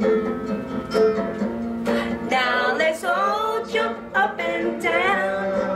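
A recorded children's action song is playing, with a singer over instrumental accompaniment. The singing comes in about two seconds in, over held notes.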